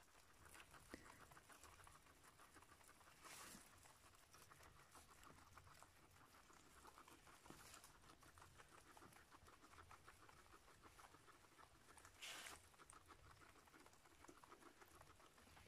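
Guinea pigs chewing fresh grass and hay: a quiet, rapid, continuous crunching, with three brief louder rustles.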